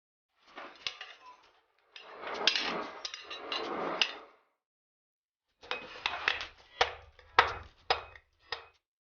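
Hand-tool work on an old ball-peen hammer head: scraping or rubbing noise, then a series of sharp knocks and clinks of metal striking metal, in short bursts broken by silent gaps.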